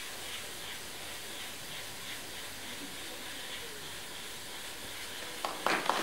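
Steady hiss of compressed air blowing through a plastic cable duct to push an optical fibre along. Near the end a few sharp claps ring out and applause breaks out.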